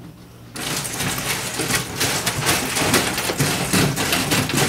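Dense, rapid clatter of cardboard jigsaw puzzle pieces being handled and fitted, starting about half a second in.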